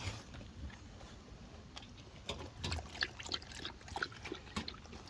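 A dog dunking its muzzle into water after an ice cube: a run of short, irregular splashes and slurps, coming thick and fast from about two seconds in.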